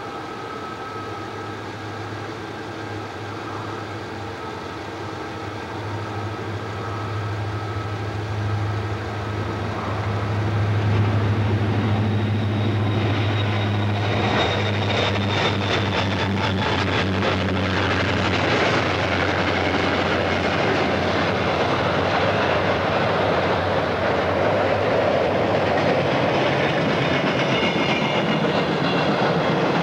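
Diesel freight locomotives passing with a steady low engine drone that grows louder. From about halfway through come wheel clicks over the rail joints and the rolling rumble of the freight cars going by.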